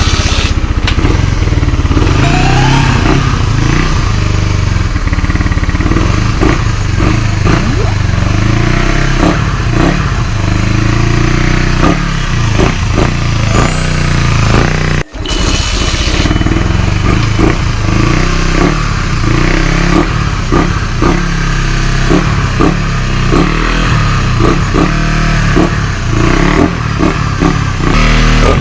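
Suzuki Raider 150 Fi single-cylinder engine running and being revved, with a brief break about halfway through. The owner says this engine has no idle.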